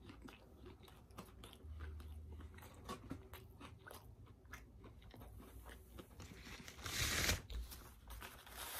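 A person chewing food close to the microphone, with many small mouth clicks and crunches. There is a louder noisy burst about seven seconds in.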